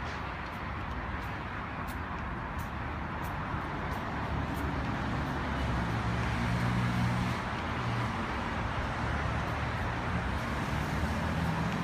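Steady outdoor background noise with a low, engine-like hum that grows louder a few seconds in and eases off near the end.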